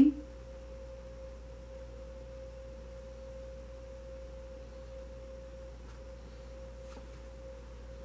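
A single steady pure tone, mid-pitched and unchanging, with a faint low hum beneath it.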